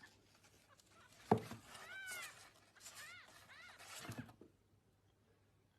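A kitten mewing: several short, high calls, each rising then falling in pitch, with a sharp knock about a second in. It goes quiet after about four and a half seconds.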